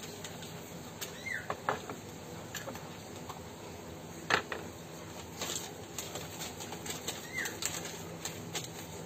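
Paper rustling and being handled, with scattered light clicks and one sharp knock about four seconds in as a small box is set on a wooden tray.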